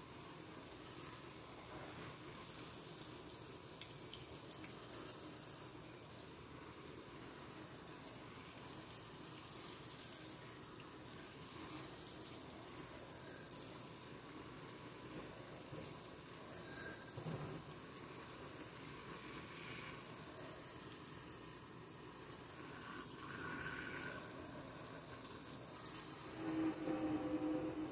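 Kitchen faucet sprayer running onto a stainless steel sink, rinsing dish-soap foam down the drain: a steady hiss and splash that swells and fades as the spray moves around the basin. It is louder near the end.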